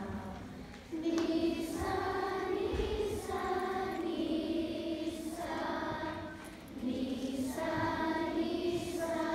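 A group of schoolchildren singing together as a choir in long held notes, with short breaks between phrases about a second in and again past six seconds.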